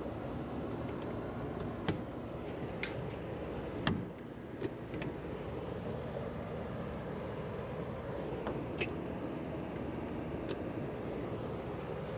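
Steady background noise with a few sharp clicks and taps scattered through it, about six in all, typical of hands and tools working at a sheet-metal access panel.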